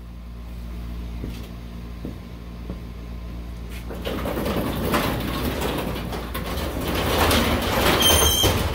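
A 1970s two-car sectional garage door being pulled down by hand, its panels rattling and rumbling louder as the door rolls down its tracks. A short high metallic squeal comes near the end as the door comes down. A steady low hum runs underneath.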